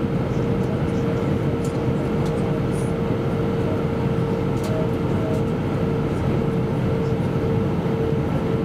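Steady in-flight cabin roar of an Airbus A320-232, airflow and its IAE V2500 engines, heard from a window seat near the end of the flight. A steady droning tone sits over the even roar.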